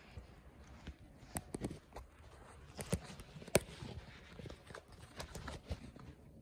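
A cat's paws scampering about in play, making a string of irregular taps and thumps on the floor, the loudest about three and a half seconds in.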